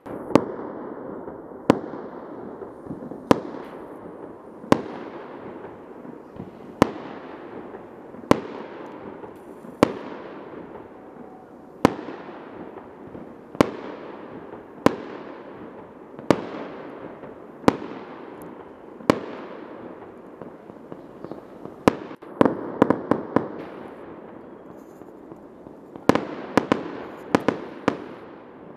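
Aerial firework shells bursting overhead, a sharp bang about every one and a half seconds, each followed by a long fading echo. About two-thirds of the way through and again near the end, the bangs come in quick clusters of several.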